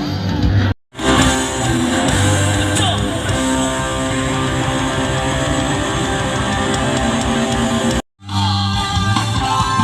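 Live rock band playing amplified music with guitar and singing. The sound drops out completely twice for a moment, about a second in and near the end.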